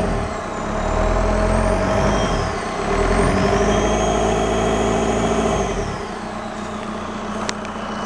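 Volkswagen CJAA 2.0 TDI four-cylinder turbodiesel revved up twice, with a high whistle rising and falling with the revs, then dropping back to idle about six seconds in.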